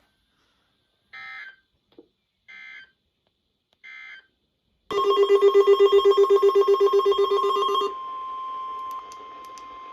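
NOAA Weather Radio SAME alert header: three short digital data bursts about a second apart. Then the steady 1050 Hz warning alarm tone begins. Over the tone's first three seconds, a weather radio receiver's own alarm beeps rapidly and loudly, triggered by the test. The steady alarm tone then carries on alone.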